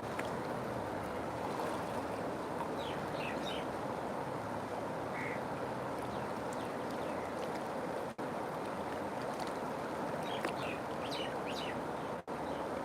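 River water flowing in a steady rush. Twice, at about three seconds in and again near the end, a bird or water bird gives a quick cluster of short, high calls.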